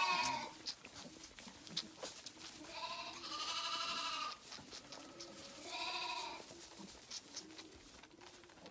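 Zwartbles lambs bleating: a wavering bleat at the very start, a longer one about three seconds in and a shorter one about six seconds in, with faint sucking at the feeding bottles in between.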